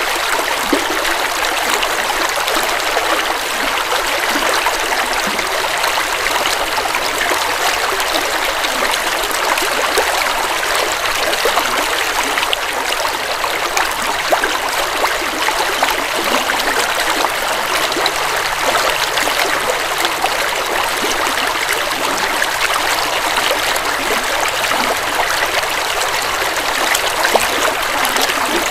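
Forest river flowing over rocks: a steady rushing and babbling of water with small splashes throughout.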